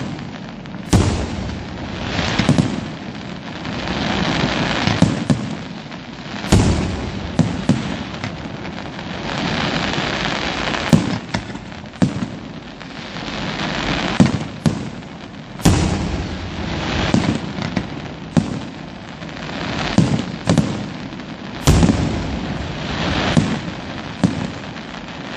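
Aerial firework shells bursting in a professional display: irregular bangs, often one to two a second and sometimes in quick clusters, over a continuous rushing hiss between them. The heaviest bangs come about a second in, around six and a half seconds in, near the middle and about four seconds before the end.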